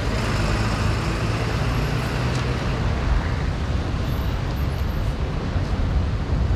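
Road traffic passing on a multi-lane avenue: a steady mix of car and truck engines and tyre noise, strongest in the low rumble, with no single event standing out.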